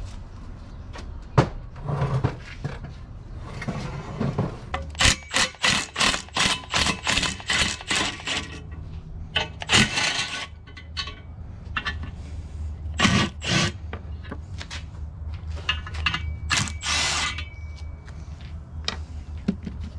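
Hand tools working on a metal engine: a series of sharp clicks and scrapes, with a run of evenly repeated strokes partway through and longer scraping noises later, over a low steady hum.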